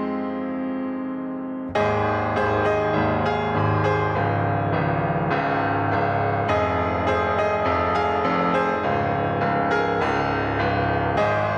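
Background piano music: a held chord fades away, then a steady run of notes begins just under two seconds in.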